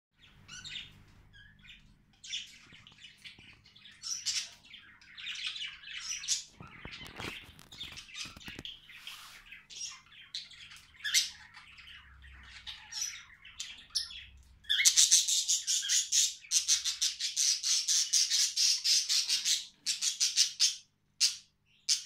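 Budgerigar chattering, on and off at first and then in a louder, almost unbroken run from about fifteen seconds in, with a brief patch of clicks around seven seconds in.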